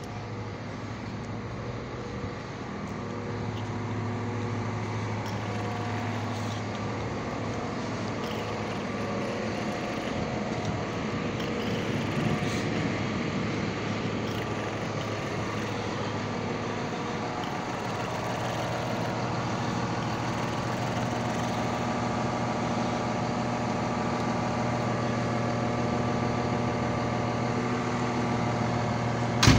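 Caterpillar 950M wheel loader's C7.1 diesel engine idling steadily, getting gradually louder toward the end, with a single sharp knock at the very end.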